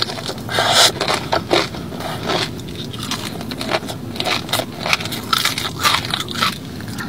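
Biting into and chewing a breaded fried chicken tender: a run of irregular crunches and crackles, loudest at the first bites.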